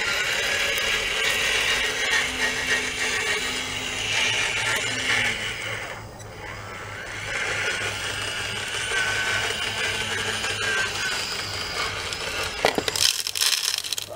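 Small electric drive and hydraulic motors of a radio-controlled scale CAT 966E wheel loader whining steadily as it drives and works its bucket. Near the end, crushed stone tipped from the bucket rattles loudly into a model dump truck bed.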